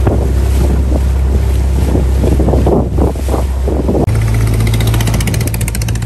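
Motorboat engine droning steadily, with wind buffeting the microphone and water rushing past the hull. About four seconds in, the engine hum jumps to a higher pitch with a fast, even pulsing.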